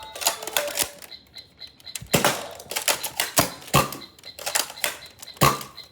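A toy foam-dart blaster being cocked and fired over and over: a dozen or so irregular sharp plastic clacks and knocks.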